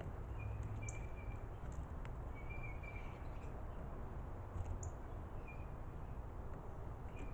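Birds chirping: short, scattered chirps with a few thin high squeaks, over a steady low hum.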